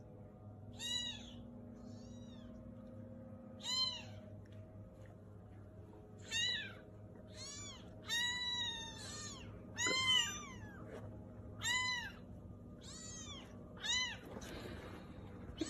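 Young kittens mewing: about a dozen short, high-pitched mews, each rising then falling in pitch, coming every second or so.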